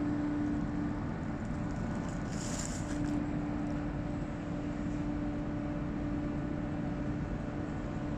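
Car ferry's engine running with a steady drone and hum as the ferry pulls away from the slipway. A short hiss sounds between two and three seconds in.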